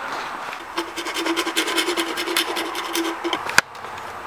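A drill with a hole saw cutting into a plastic brake-light housing: a steady motor whine under rapid scraping from the saw's teeth, lasting about two and a half seconds and then stopping. A single sharp click follows.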